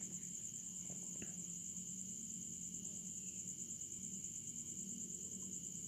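Steady high-pitched chirring of crickets in the background, with a faint low hum and a couple of faint clicks about a second in.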